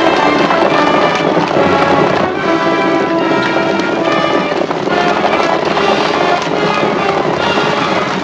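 Orchestral chase music led by brass, over a dense clatter of many horses galloping.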